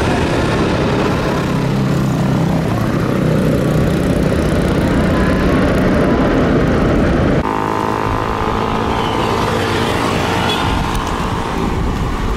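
Loud, continuous jet airliner engine noise. About seven seconds in it changes abruptly to a slightly quieter, steadier engine sound with a whine in it.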